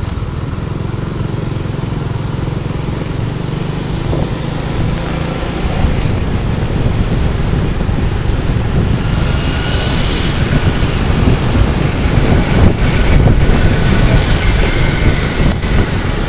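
Motorcycle engine running on the move, heard from the bike, with wind rushing over the microphone. The noise grows louder and more gusty about six seconds in.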